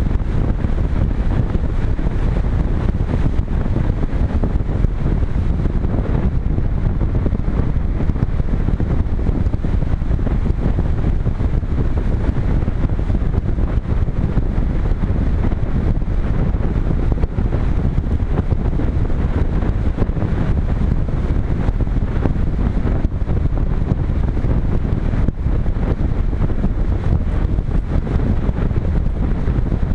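Steady rush of airflow buffeting a GoPro camera mounted on a Multiplex Cularis RC glider in flight, strongest in the low rumble, with no motor whine.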